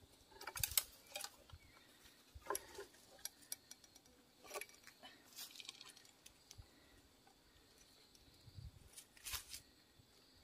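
Faint, scattered clicks and rustles of a bamboo tube trap being handled and squirrels being pulled out of it over dry leaf litter, with a dull low thump shortly before the last cluster of clicks near the end.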